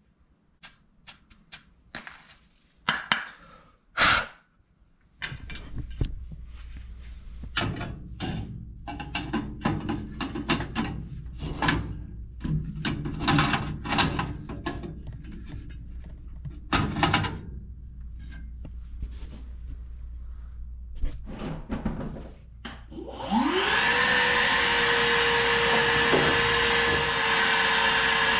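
Knocks and clatter of metal furnace parts being handled during burner cleaning, over a low hum. Near the end a small electric motor spins up with a rising whine, runs steadily with a loud rush of noise for about five seconds, then winds down.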